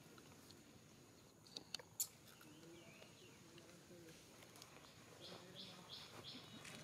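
Near silence with faint outdoor ambience: a few faint high chirps, then a run of four short high notes near the end, and a sharp click about two seconds in.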